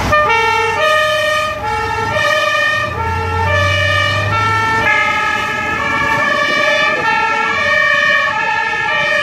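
German two-tone emergency horns (Martinshorn) of a fire engine and an ambulance pulling out, alternating between two pitches. From about five seconds in, a second horn sounds out of step with the first, so the tones overlap. A heavy engine's low rumble underlies the first half and fades out.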